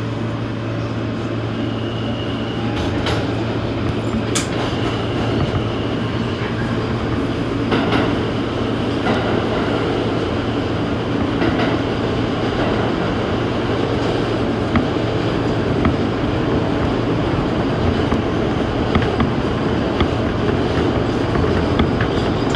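New York City Subway A train running along the track: a steady rumble over a low hum, with scattered sharp clicks and a brief high squeal about two seconds in.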